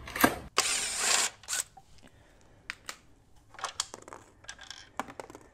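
A short loud scrape of cardboard packaging about half a second in, then scattered light clicks and knocks of hands handling a trolling motor's metal bow mount and its parts.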